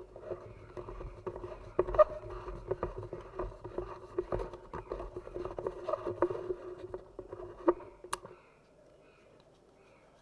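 Light clicks, taps and scrapes of thin bamboo strips being pressed and fitted by hand into a coiled bamboo cup form, with a few sharper clicks. A steady hum runs underneath, and both stop about eight seconds in.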